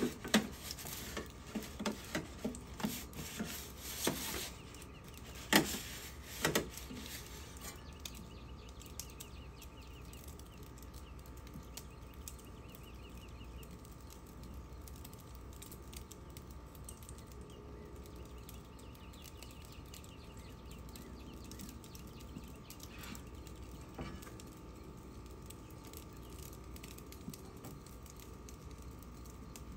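Metal pizza turning peel clacking and scraping against a pizza oven's mouth and stone, several sharp knocks in the first seven seconds as the pizza is turned. After that only a steady low rush remains, with faint bird chirps.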